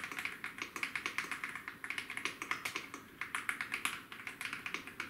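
Womier mechanical keyboard being typed on in a rapid, continuous run of keystroke clacks, with a few brief pauses.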